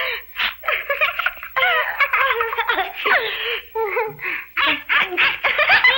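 Two children laughing together in high-pitched runs of giggles with short breaks between them.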